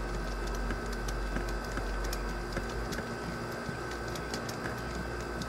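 Small scattered clicks and ticks of a screwdriver and a wire being worked into a DC plug's screw terminal, over a steady low rumble and a faint steady whine.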